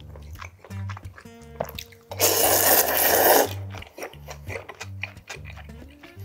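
A loud slurp of cold soy-milk noodles lasting just over a second, about two seconds in, with small clicks of chopsticks and chewing around it. Background music with a steady bass line runs underneath.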